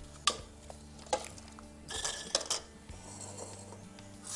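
Stainless steel mixing bowls clinking and knocking on a kitchen counter as they are moved about: a sharp knock near the start, another about a second in, and a quick cluster of clinks around two seconds in.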